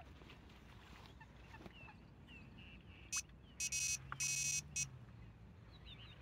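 Electronic bite alarm on a fishing rod beeping: one short beep, two longer beeps and another short beep about halfway through, the signal that the line is being pulled over the alarm.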